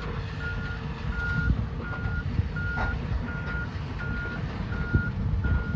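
A heavy machine's backup alarm beeping steadily at one pitch, about three beeps every two seconds, over a low rumble.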